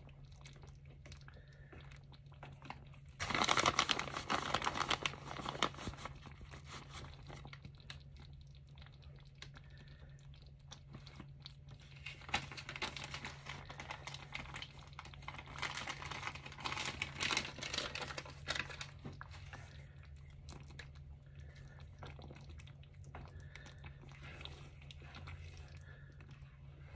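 Plastic bag of shredded cheese crinkling and rustling in two stretches, one starting about three seconds in and a longer one from about twelve to nineteen seconds, over a low steady hum.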